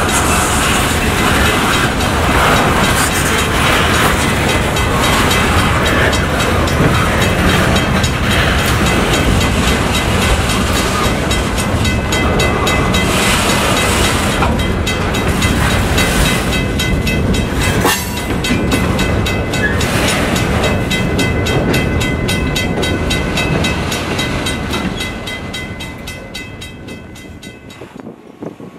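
Freight train passing close by, the EMD GP9 diesel locomotive and its cars rolling past with a quick, even run of wheel clicks over the rail joints. The sound fades away over the last few seconds as the train moves off.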